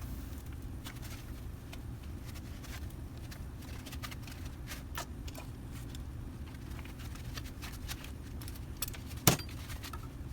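Packing foam being pulled off a delta 3D printer's hot end assembly: scattered light scrapes and small clicks over a steady low hum, with one sharp knock about nine seconds in.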